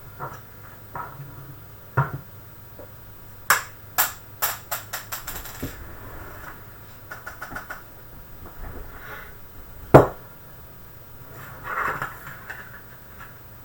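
Hand tools and small parts clicking and knocking against a computer case during an SSD install. About three and a half seconds in, a run of clicks comes quicker and quicker, and there is one sharp, loud knock about ten seconds in.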